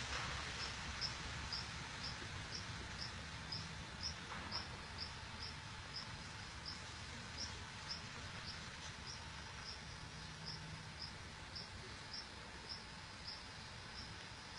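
An insect chirping: a regular series of short high chirps, two or three a second, over a steady outdoor hiss.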